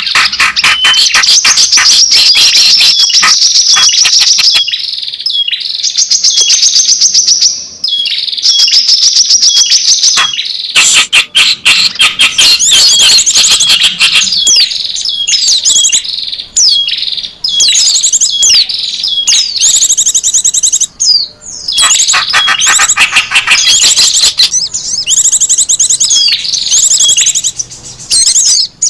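Small songbirds calling in a bird-lure recording: fast, high-pitched chirps and trills in dense runs, broken by brief pauses.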